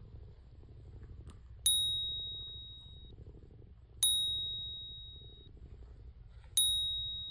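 Three clear bell-like dings, each struck once and ringing out over a second or so, spaced about two and a half seconds apart. Underneath runs a cat's low, steady purr.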